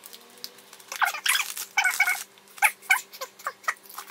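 Crinkling of a plastic snack bag, then a run of sharp crunches as crispy protein chips are bitten and chewed.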